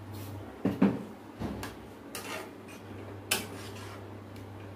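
Cooking utensils knocking and scraping in an iron kadai of thick pea curry, as a ladle and a wooden masher stir and mash the peas against the pan: a few separate knocks, loudest about a second in and again a little after three seconds.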